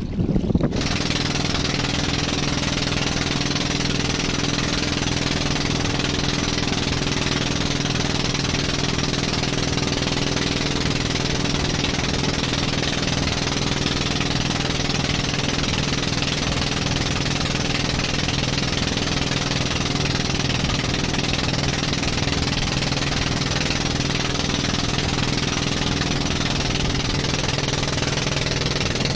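Outrigger boat's inboard engine running steadily under way, with a constant wash of water and spray against the hull and outrigger floats. The engine sound sets in abruptly just under a second in and stays level.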